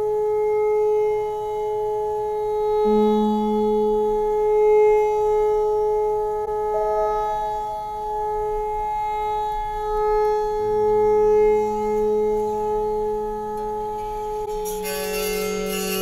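Electric autoharp sounding long, steady drone notes, its strings kept ringing by a handheld electronic string sustainer, with new sustained notes entering about three seconds in and again about ten seconds in. Near the end a flurry of plucked strings joins the drone.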